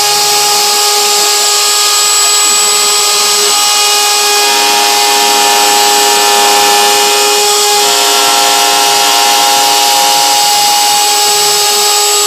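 CNC router spindle running with a V-bit carving a star into a wooden cabinet door: a loud, steady high whine with cutting hiss. The mix of tones shifts a little about four seconds in and again near eight seconds as the cut changes.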